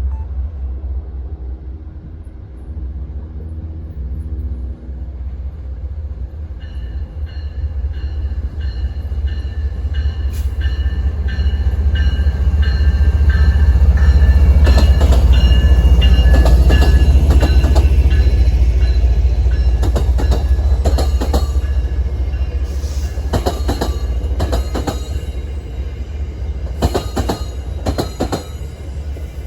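A train passing: its rumble builds, is loudest about halfway through, then fades. Steady high whining tones join a few seconds in, and a run of sharp clacks from the wheels over rail joints fills the second half.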